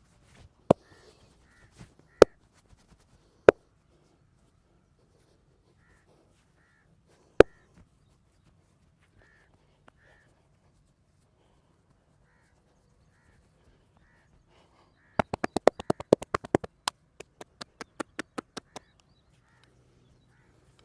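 Sharp percussive cracks and slaps from a hands-on massage: four single loud pops in the first half, then a fast run of quick hand-tapping strokes about 15 s in that slows and fades. Crows cawing faintly in the background.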